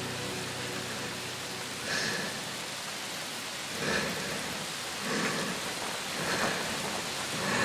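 Steady rain hiss, with a few soft swells that PANN takes for distant thunder, in a break between parts of a song.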